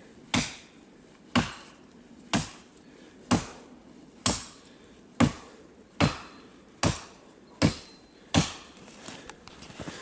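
Small axe chopping into a forked wooden branch: ten sharp blows about a second apart, coming a little faster toward the end.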